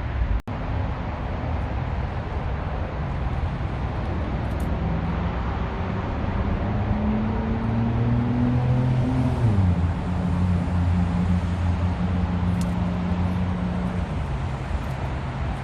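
Car driving over steady road noise. The engine's pitch climbs for a few seconds, drops sharply at a gearshift, then holds steady before fading out.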